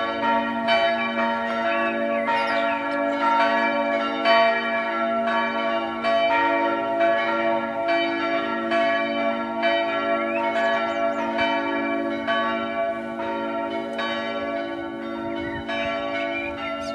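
Several church bells of a parish church's four-bell peal ringing together. Their strokes overlap in a steady, continuous peal.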